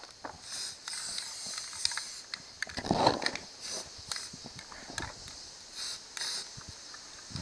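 Aerosol spray-paint can hissing in short bursts as white primer is sprayed on, with small clicks and knocks from handling the can. A louder rustling noise comes about three seconds in.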